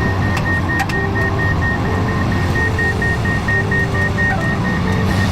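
Diesel engine of a heavy construction machine running steadily, with its warning alarm sounding a rapid, even series of high single-pitch beeps.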